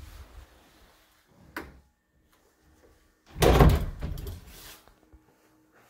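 Panelled interior closet door being handled and moved: a short knock about a second and a half in, then a louder, longer door sound about three and a half seconds in.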